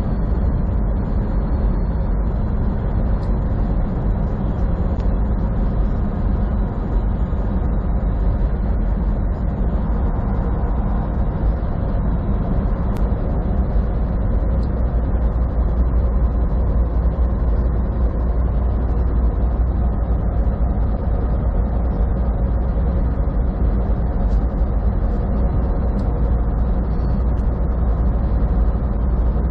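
Semi truck cruising at highway speed, heard from inside the cab: a steady low drone of engine and road noise that does not change.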